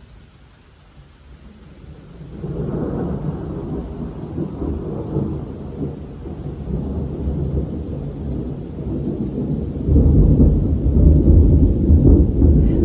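Rolling thunder: a low rumble swells in about two seconds in and grows louder again near the end, over a rain shower.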